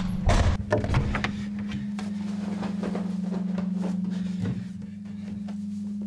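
A steady low hum, with a few sharp knocks and clatters in the first second and faint rustling of clothes as garments are thrown aside and a shirt is pulled on.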